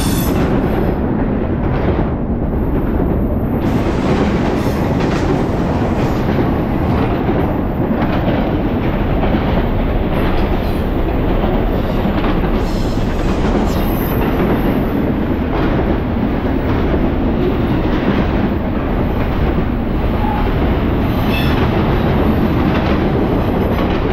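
Intermodal freight train's double-stack container cars and trailer-carrying flatcars rolling past, a loud steady rumble of steel wheels on rail with wheels clicking over the rail joints.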